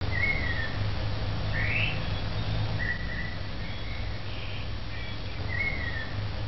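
Birds calling outdoors: short whistled notes, among them a falling one and a rising one, repeating in the same order, over a low steady hum.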